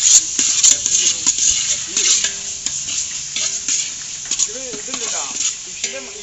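Chopped tomatoes frying with onion, ginger and garlic in hot oil: a steady sizzle, with the stirring utensil clicking and scraping against the pan, the clicks coming thick at first and thinning out.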